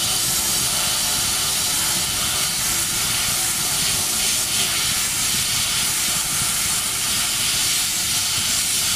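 Bead-blasting gun in a blast cabinet, blasting the headstock of a Rockwell 10-inch metal lathe: a loud, steady hiss of compressed air and beads striking the metal.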